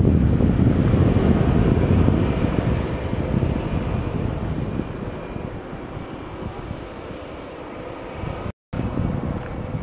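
Airbus A320 jet engines rumbling as the airliner moves away down the runway, the noise fading steadily. The sound cuts out for an instant near the end.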